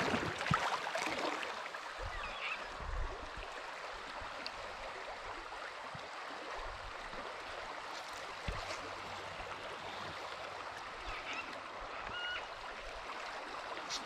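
Fast, shallow river riffle: water rushing steadily over gravel and rocks.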